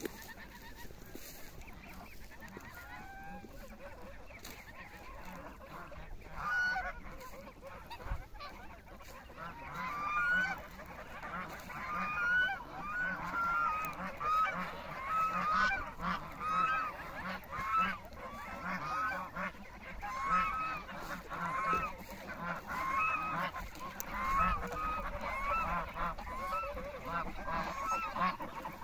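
A flock of white domestic geese honking. At first there are only a few scattered calls; from about ten seconds in they become a dense, continuous chorus of overlapping honks.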